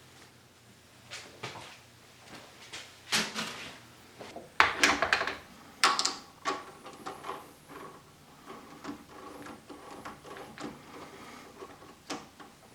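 Handling sounds in a workshop: scattered knocks, clunks and scrapes, with the loudest cluster about five seconds in.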